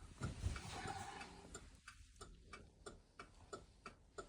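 Faint, even ticking, about three clicks a second, with a low thump near the start.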